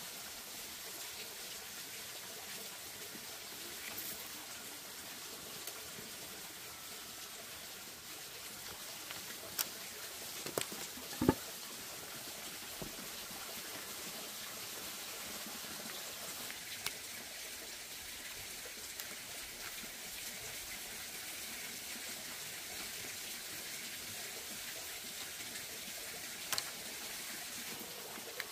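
Split-bamboo strips being laid and woven by hand, giving a few light clicks and taps, the loudest about eleven seconds in. Underneath is a steady, water-like hiss.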